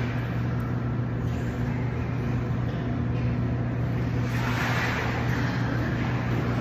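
Steady low hum of pool machinery under a hiss of water, with a child splashing about four to five seconds in.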